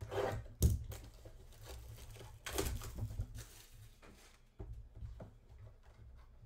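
A trading-card box and its packs being handled and opened: rustling of cardboard and wrapper with a sharp knock near the start, then a longer burst of tearing and crinkling of a foil pack wrapper, followed by small clicks and ticks.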